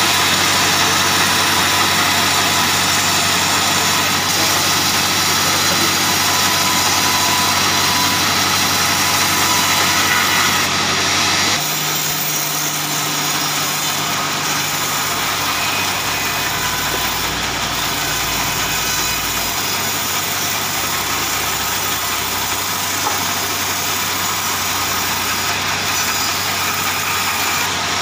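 Band sawmill running with a steady machine drone, its drive and band blade turning continuously. The drone changes suddenly in pitch and tone about twelve seconds in, then holds steady again.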